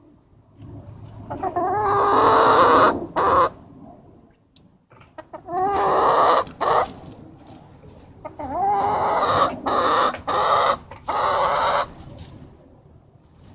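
Chickens calling: three loud, drawn-out calls of wavering pitch, with short quieter gaps between them.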